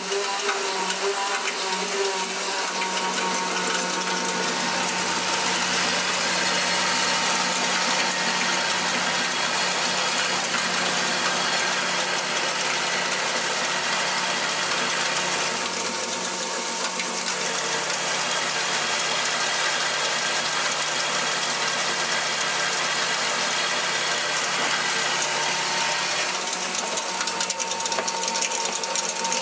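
ZYL-250 screw and bonded-washer assembly machine running at full output of about 460 pieces a minute: a dense, steady mechanical rattle of parts moving through the feeds and assembly head, with a constant hum under it.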